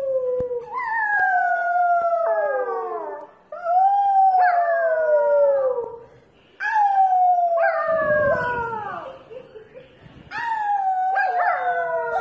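Puppy howling: about four long howls in a row, each sliding down in pitch, with short breaks between them.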